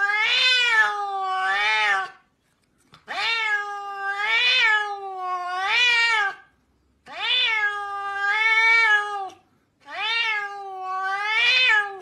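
Domestic cat meowing in long, drawn-out calls, four of them with short pauses between. Each call wavers up and down in pitch two or three times.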